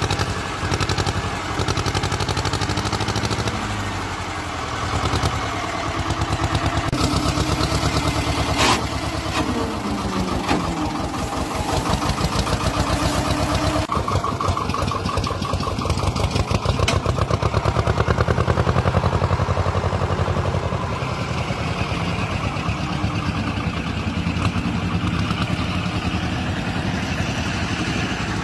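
Thwaites dumper's engine running on its first start in five years, with a steady pulsing beat whose pitch rises and falls as the revs change. A single sharp click sounds about nine seconds in.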